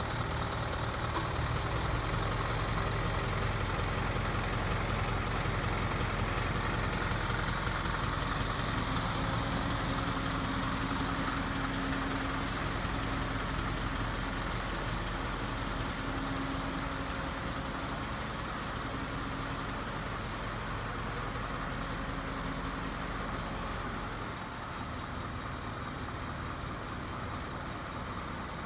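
Flatbed tow truck's engine idling steadily with a low rumble. The deepest part of the rumble drops away about 24 seconds in.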